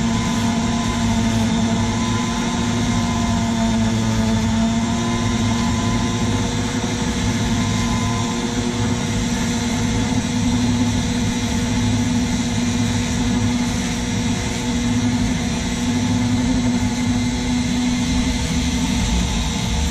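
Small pen-style rotary tool with a sanding drum running at high speed, grinding down a repaired chip on a revolver grip panel. A steady whine whose pitch wavers slightly as the drum bears on the work.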